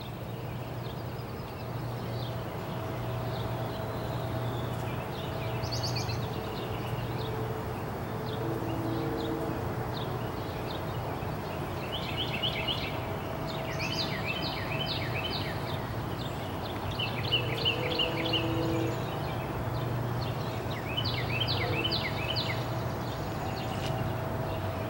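Songbirds singing short, rapid trilled phrases, more often in the second half, over a steady low background hum.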